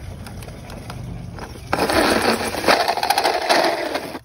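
Cordless drill boring a hole through vinyl siding into the house wall. The motor runs lightly at first, then about a second and a half in the bit bites and a loud, rough cutting noise goes on until the drill stops suddenly at the end.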